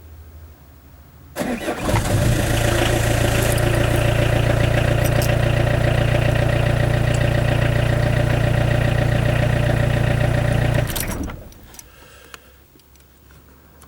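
Car engine started with the ignition key: the starter cranks for well under a second before the engine catches. It then idles steadily for about nine seconds and is switched off, running down over about half a second.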